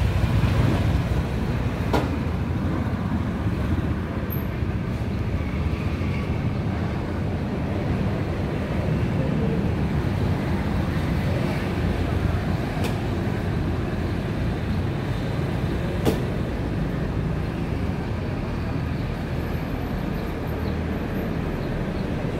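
Steady road traffic: cars and motorcycles passing on a busy road, with a few brief clicks.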